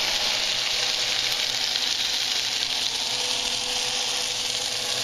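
Cooking oil sizzling in a hot frying pan: a steady hiss.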